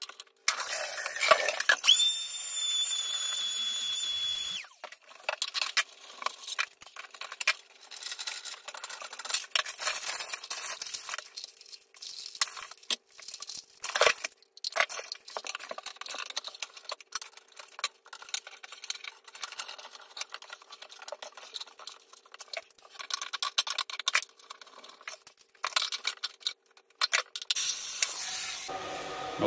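Sped-up clicking and clattering of plastic fittings and hand tools as a toilet cistern's ball valve (float valve) is taken out and a new one fitted. A faint steady hum runs underneath, and a high whine sounds for about two seconds near the start.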